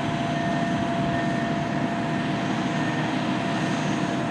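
A steady, low engine rumble with a faint steady whine that fades out about three seconds in.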